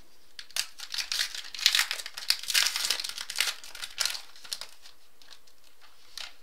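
Foil trading-card pack crinkled and torn open by hand: a run of sharp crackling and crinkling that dies away about four and a half seconds in.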